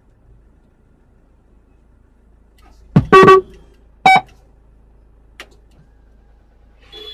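Car horn honking in short toots: two close together about three seconds in, the second lasting about a quarter of a second, and another short toot about a second later. A faint click follows.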